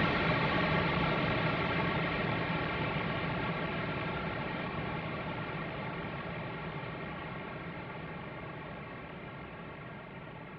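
Closing music: one long sustained chord, ringing with many overtones, fades away steadily.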